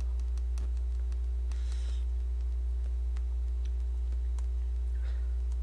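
Steady low electrical hum on the microphone line, with a few faint clicks scattered through and a short hiss about one and a half seconds in.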